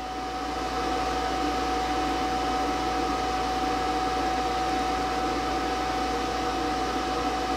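A steady machine whir with a constant whine running through it, a little louder after the first second.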